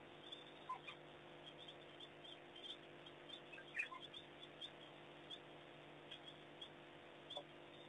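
African wild dogs' faint, scattered high-pitched twittering squeaks, the loudest about four seconds in, over a steady low hum.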